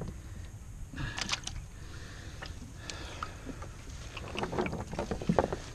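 Monofilament cast net with lead weights being handled on a plastic kayak deck: the mesh rustles and the weights clatter and knock against the hull, in a quick run of knocks near the end, over a steady low rumble.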